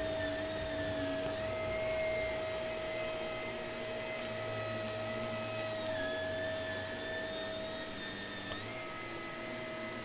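Shark upright vacuum cleaner running on carpet: a steady motor whine over airflow hiss, its pitch shifting slightly a few times as it is pushed along.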